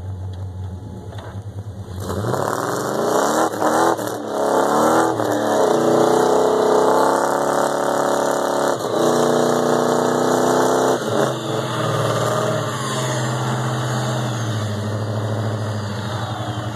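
1996 Dodge Ram's 318 (5.2 L) V8, breathing through long-tube headers and a full custom Magnaflow exhaust with an X-pipe, idling and then revved hard about two seconds in under load as the rear wheels spin in snow. Its pitch climbs and is held high with a brief dip, then falls back to a lower steady run about eleven seconds in.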